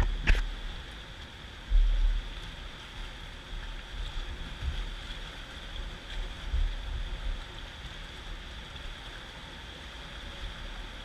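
Steady rush of river water around an inflatable boat, heard from a camera mounted on the boat. A sharp click just after the start comes from handling the camera, and low bumps and wind buffets on the microphone come and go, the strongest about two seconds in.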